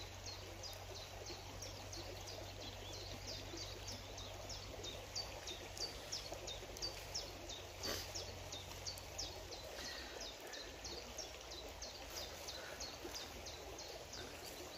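A bird repeating a short, high, falling chirp about three times a second over faint outdoor background noise, with a single sharp click about eight seconds in.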